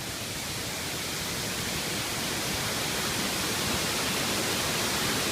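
Steady rushing of a waterfall, growing slightly louder.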